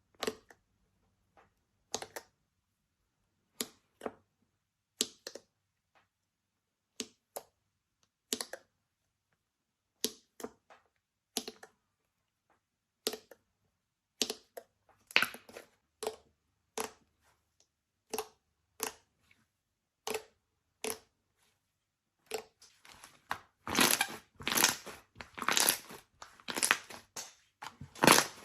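Slime being pressed and squeezed by hand, giving sharp crackles and pops about once a second, then a dense, louder run of crunching near the end.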